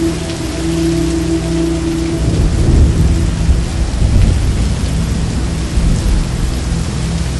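Heavy rain pouring steadily, with a low rumble of thunder swelling up a couple of seconds in and rolling on for a few seconds. A faint low held tone sounds under the rain at first.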